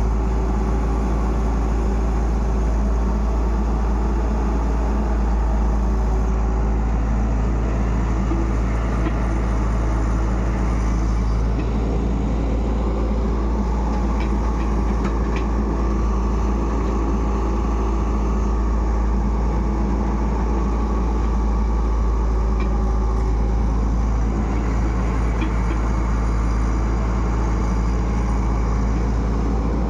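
Tata Hitachi EX70 excavator's diesel engine running steadily, heard from the operator's seat, with a deep constant hum.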